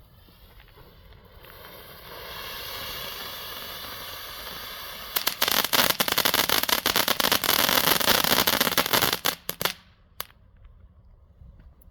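Small ground firework fountain (volcano) burning: a hissing spray that builds over the first couple of seconds, then about four seconds of loud, dense crackling that cuts off abruptly, with one last crack just after.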